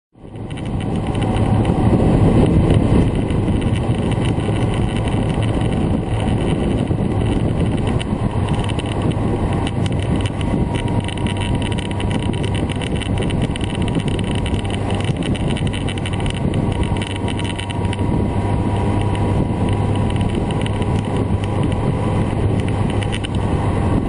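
Honda CB1300 Super Bol d'Or's inline-four engine running steadily at expressway cruising speed, heard from the saddle, with wind rushing over the microphone.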